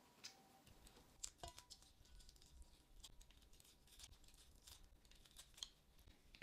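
Faint, scattered clicks and scrapes from handling food and tableware at a meal.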